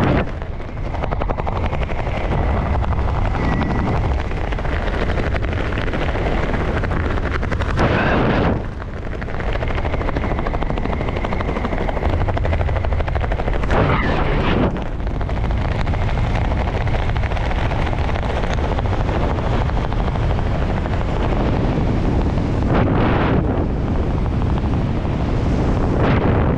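Wind rushing and buffeting over a GoPro action camera's microphone during a skydive. It is a loud, steady roar that surges briefly a few times.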